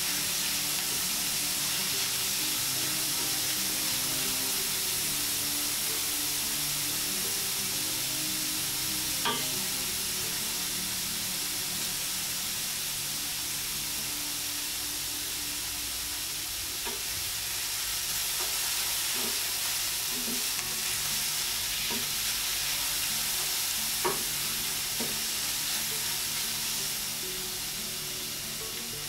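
Diced onions and grated carrot sizzling steadily in hot oil in a stainless steel pan while being stirred with a wooden spatula, with an occasional light knock of the spatula against the pan.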